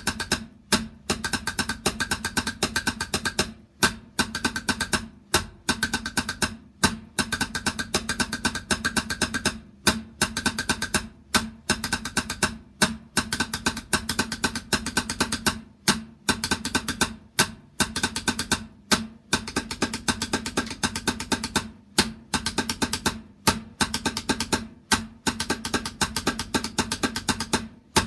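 A drum played in fast, dense strokes, in phrases of about a second and a half broken by brief pauses, repeating evenly. The drum rings at a steady pitch under the strokes.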